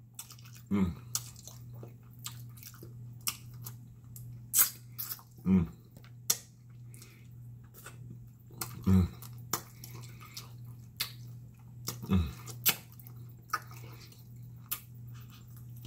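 Close-up wet mouth sounds of someone eating baked pig feet with his fingers: many short smacks and sucking clicks as meat is pulled and sucked off the bone, with a few short low sounds that drop in pitch. A steady low hum lies underneath.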